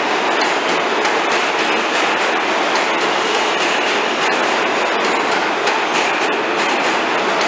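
New York City subway train moving along the track: a loud, steady rumble of steel wheels on rail, with a rapid run of clicks from the wheels passing over rail joints.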